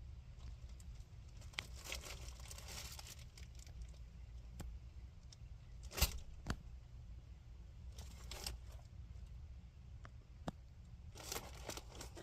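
A raccoon rummaging and tearing at food, heard as bursts of crinkling and rustling about two, eight and eleven seconds in. Sharp clicks come in between, the loudest about six seconds in.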